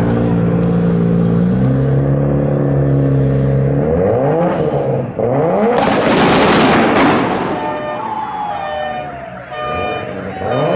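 Toyota Supra's straight-six idling, then revved hard several times, rising and falling. About six seconds in comes a loud burst of wheelspin as it launches with its tyres smoking, and the engine note then falls away as it pulls off.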